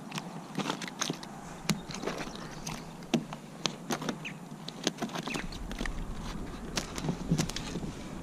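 Irregular knocks, taps and clatter of gear being handled on a plastic fishing kayak, with a low rumble joining about five seconds in.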